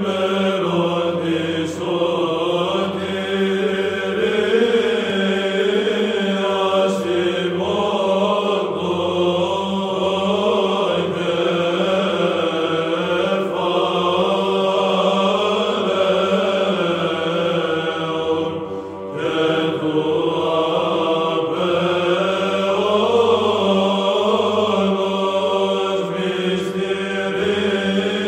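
Byzantine chant sung by men's voices: a moving melody over a steady held low drone (the ison). The singing breaks briefly about two-thirds of the way through.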